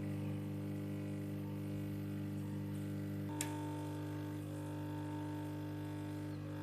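Hot-air heater running at about 300 degrees to soften a phone's back-cover glue: a steady electric hum, with one sharp click about halfway through after which the hum's tone changes slightly.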